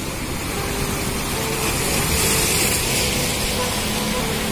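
Small sea waves washing in and splashing against the rocks of a breakwater, with a louder surge of spray about two seconds in. Wind rumbles on the microphone underneath.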